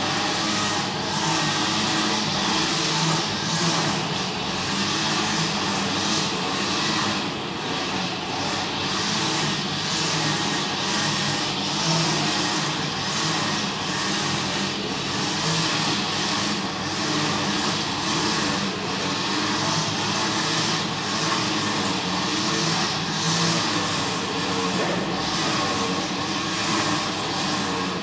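Steady noise of city traffic, a constant wash of passing cars, picked up through a twin-dish parabolic sound mirror.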